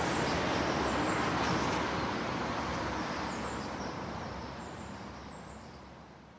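City street ambience heard from about 50 m away: a steady wash of distant traffic and light rain, with faint short bird chirps. The whole fades out over the last few seconds.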